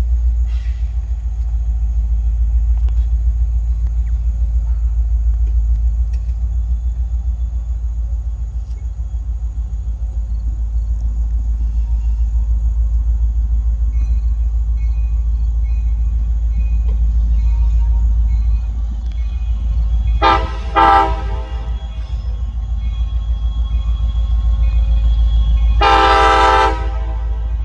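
Pennsylvania Northeastern diesel locomotive's air horn sounding for a grade crossing: two blasts of about a second each, the first about twenty seconds in and the second about five seconds later, over a steady low rumble.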